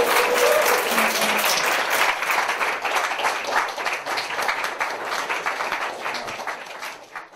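Audience applauding, a dense clapping that thins out and stops near the end.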